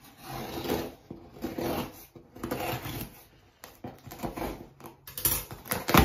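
A cardboard shipping box being opened and its packing material handled: irregular rustling and scraping, with a few sharp cracks near the end.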